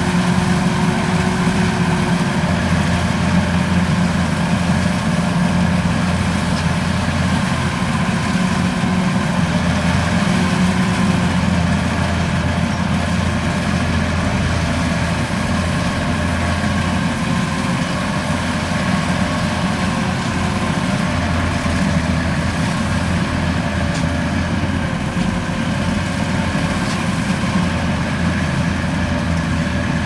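Kubota DC93 combine harvester's diesel engine and threshing machinery running steadily as it cuts rice, a low even hum with no change in speed.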